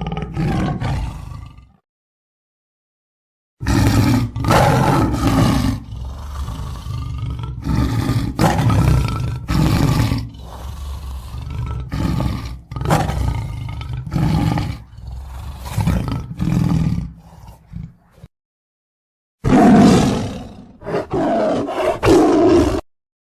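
Lion roaring: a short roar at the start, then after a pause a long series of deep, loud roars and grunts, and another bout near the end.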